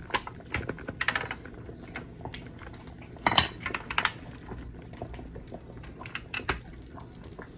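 Kitchen utensils clinking and knocking against a cooking pot and dishes, with a loud ringing metallic clink a little past three seconds in.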